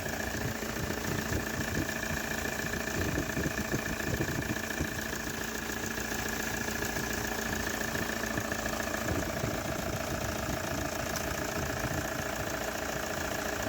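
Toyota Hilux 3.0 diesel engine idling steadily, running smoothly with a new water pump and accessory belt fitted: the loud noise from the worn, loose water pump is gone.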